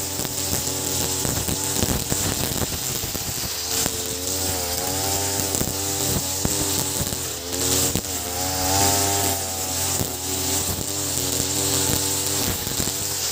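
Ogawa BG330 33cc two-stroke brush cutter running at high revs, its 2.4 mm square nylon trimmer line cutting short grass. The engine note dips and climbs again several times as the head sweeps through the grass.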